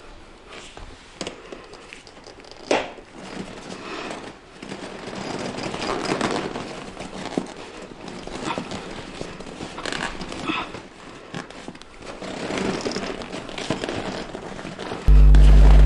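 Close-up handling noise on a Garpun 4.5 inflatable kayak's fabric hull as its bow and stern spreaders are fitted. The fabric rustles and crinkles, with scattered knocks; the sharpest knock comes about three seconds in.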